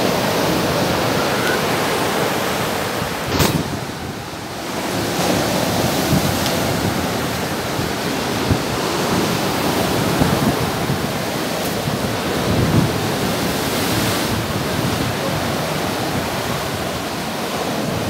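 Heavy storm surf breaking on a pebble beach: a continuous loud rush of crashing waves, with wind buffeting the microphone. A brief sharp click a few seconds in.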